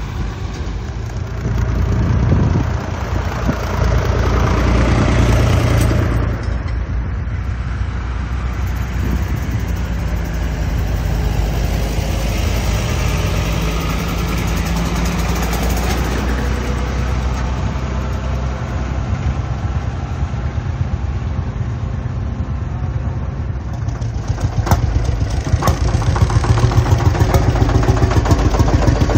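Old tractor diesel engines running in the open, with a tractor pulling away and moving early on. Near the end a closer engine runs with an even, rapid beat.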